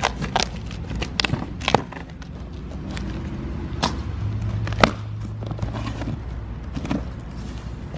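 Cardboard shipping box being opened: a blade slicing through the packing tape, then scrapes and knocks as the cardboard flaps are pulled apart, heard as a scattering of short, sharp clicks and knocks. A low steady hum comes in about halfway through.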